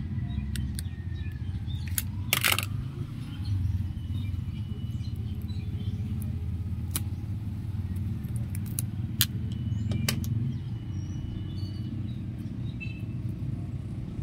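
Steady low rumble in the background, with a short scrape about two seconds in and scattered sharp clicks later on as the end of a coaxial cable is cut and stripped with a utility knife and then pliers.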